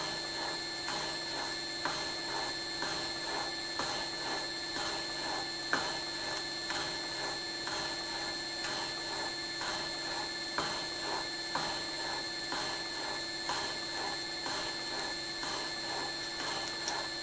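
Bridgeport mill's slotting head running, its ram stroking the cutter up and down about once a second to cut a keyway in a metal motor coupler. Each cutting stroke gives a thump over the steady hum of the motor, as a chip of metal peels off.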